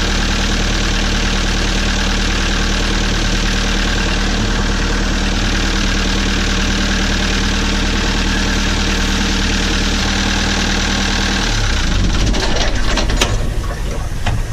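Forty-year-old inboard sailboat diesel idling steadily, drawing its cooling water from a bucket. About twelve seconds in its note changes, and a sharp click follows.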